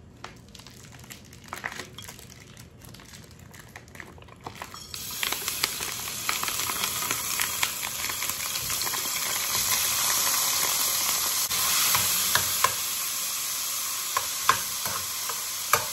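Diced ham frying in hot vegetable oil in a pot: a sizzle starts about five seconds in as the ham goes into the oil and builds to a loud, steady hiss. From a little past halfway, a metal spoon clicks and scrapes against the pot as the ham is stirred.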